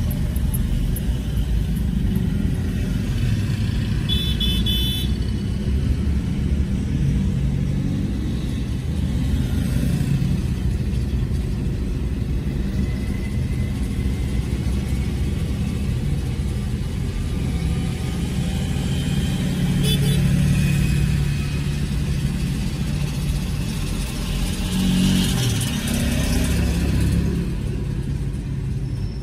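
City road traffic heard from a moving vehicle: a steady low rumble of engines and tyres, with motorbikes and tuk-tuks running close by. A few short high tones sound about four seconds in, and a nearby engine passes, rising and falling, a few seconds before the end.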